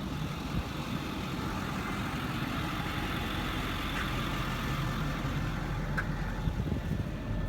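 Ford F-550's 6.4 Power Stroke V8 diesel idling steadily.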